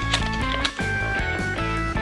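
Background music: an upbeat instrumental with guitar and a steady bass line.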